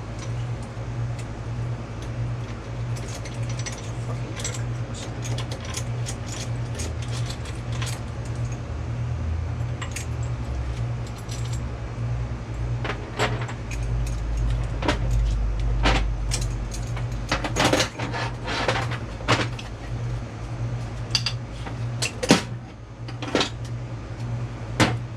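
Metal tools and compressor parts clinking and tapping in irregular sharp clicks over a steady low hum, as the connecting-rod caps and pistons are taken out of an air compressor block.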